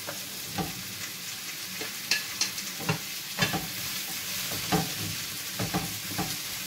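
Vegetables sizzling as they stir-fry in oil in a frying pan, with irregular clacks and scrapes of a wooden spatula against the pan as they are stirred.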